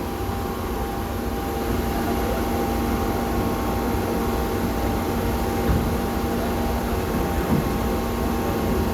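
Car ferry's machinery running with a steady low drone and a few constant hum tones, with a couple of brief knocks in the second half.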